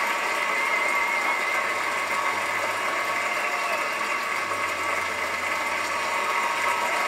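Arena audience applauding steadily, a dense even clatter of clapping.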